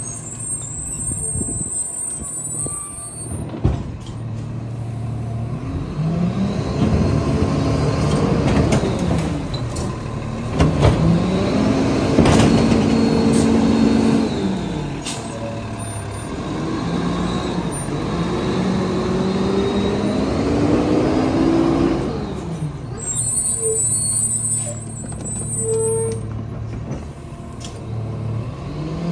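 Lodal EVO garbage truck's diesel engine revving up and down several times. Air brakes hiss briefly near the start and again a few seconds before the end.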